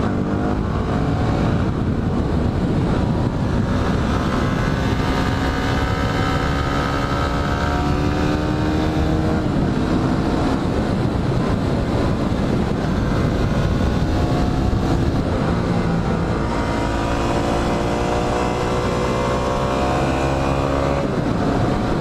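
Yamaha WR250R's single-cylinder four-stroke engine running under way, its pitch holding, dropping about halfway through, then climbing again as the bike accelerates near the end.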